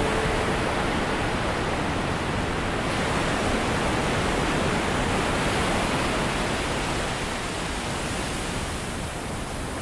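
Steady rushing noise of ocean surf, swelling slightly in the middle and easing a little near the end.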